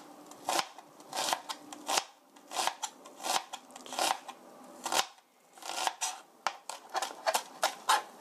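Kitchen knife slicing through a scored onion on a plastic cutting board, each stroke a crisp cut ending in a tap on the board. The cuts come about two a second, then quicken to about three a second in the second half.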